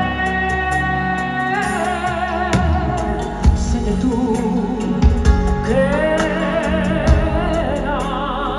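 Live pop ballad through a concert sound system: a woman singing long held notes with vibrato over a band with bass and a few drum hits.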